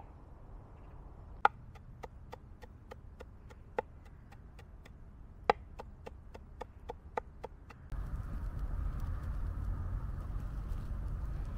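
Knife chopping on a cutting board: a run of quick, even taps about four a second, with a few harder strokes. Near the end a steady low rumble sets in.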